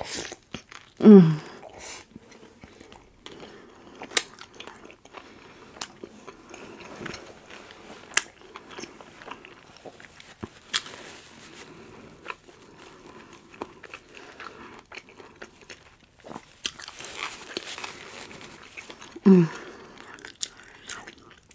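A person chewing and crunching food close to the microphone, with sharp mouth clicks and smacks throughout. There is a short falling hum about a second in and another near the end.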